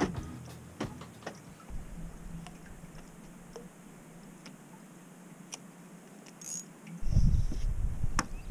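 Sparse light clicks and taps from handling a spinning rod and reel while a hooked baitfish is cast out. A low rumble comes in about seven seconds in, and a sharp click sounds just before the end.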